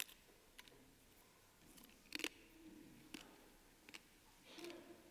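Near silence broken by a few faint clicks and small knocks, the loudest about two seconds in.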